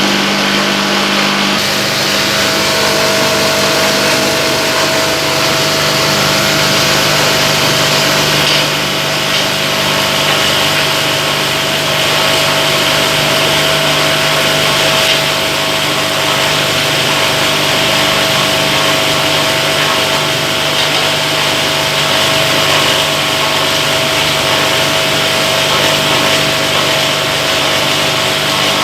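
Wet waste chopper-grinder with rotary blades running steadily, a motor hum over a broad grinding hiss; its tone shifts once about a second and a half in.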